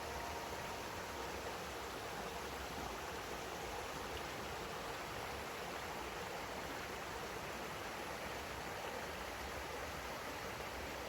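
Steady rush of flowing stream water, an even hiss with no change.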